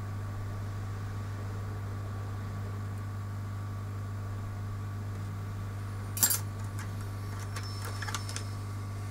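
Steady electrical hum, with one sharp click about six seconds in and a few lighter clicks near the end, like small tools or parts being set down.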